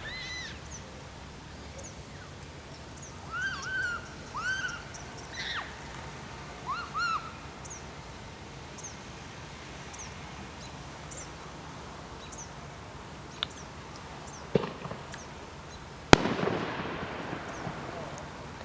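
A single loud firework bang near the end, followed by a rolling echo that fades over a couple of seconds, with a few sharper pops shortly before it. Earlier, birds give short rising-and-falling calls.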